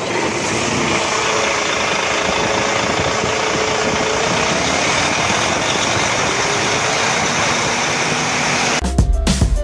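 Bus engine idling steadily just after starting. Music with a heavy beat cuts in near the end.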